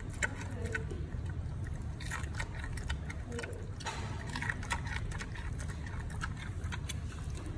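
Giant panda chewing a piece of carrot: a run of irregular wet crunches and clicks over a steady low rumble.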